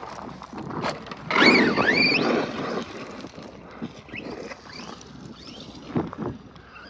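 Arrma Kraton 4S V2 RC truck's brushless motor whining as it revs up and down while driving, the loudest burst about a second and a half in.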